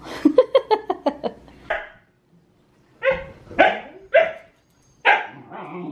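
Siberian huskies barking and yipping: a quick run of short yips, then after a short pause a few louder barks.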